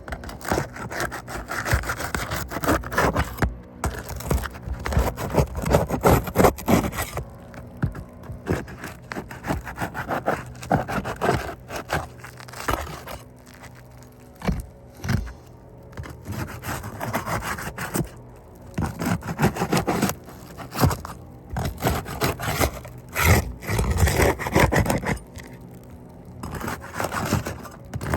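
Asphalt roof shingles being pried up and scraped to break their sealant strips, in repeated rough scraping strokes with short pauses.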